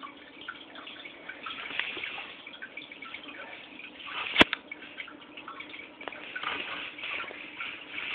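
Aquarium water trickling and dripping, full of small splashy ticks, over a faint low steady hum. A single sharp click sounds about four and a half seconds in.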